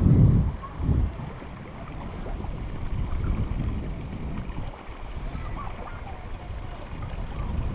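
Water sloshing and rumbling against a camera held at the river's surface as someone moves through the shallows, with wind buffeting the microphone. Strong low surges come at the start and about a second in, then the sound settles to a steadier wash.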